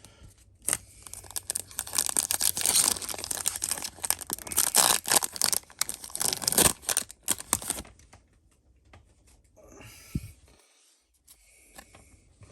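Foil Yu-Gi-Oh booster pack wrapper being torn open and crinkled: several seconds of dense tearing and crackling, then quieter rustling near the end.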